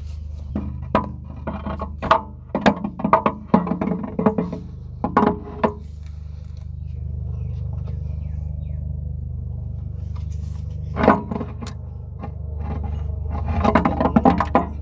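Metal parts clinking and knocking as a hydraulic pump and its linkage are handled and fitted into a Massey Ferguson tractor's hydraulic housing. The knocks come in a busy run over the first few seconds, once more later, and again in a cluster near the end, over a steady low hum.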